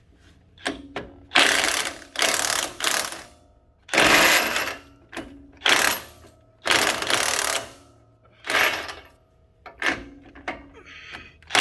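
Socket ratchet clicking in repeated, irregular strokes, each a fraction of a second to about a second long, turning a sway bar link bracket bolt, with a faint metallic ring after some strokes.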